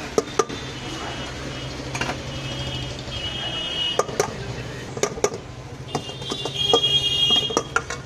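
A metal spoon clinking and scraping against a stainless-steel mixing bowl as chaap pieces are tossed in marinade, in short irregular knocks, over a steady low hum. Twice a high ringing tone sounds for about a second, loudest near the end.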